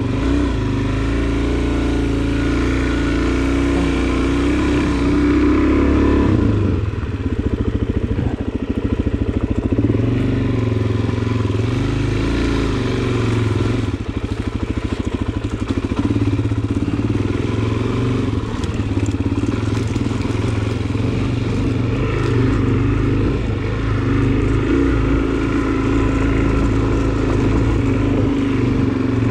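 Suzuki DR-Z400SM's single-cylinder four-stroke engine running as the bike is ridden, its note changing with the throttle and dipping briefly about six seconds in.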